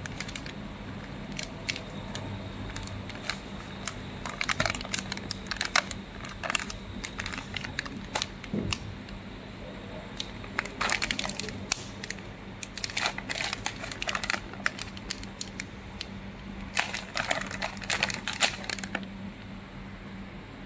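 Sealed foil film pouch crinkling as it is squeezed and turned in the hands, in several bursts of crackling, over a steady low hum.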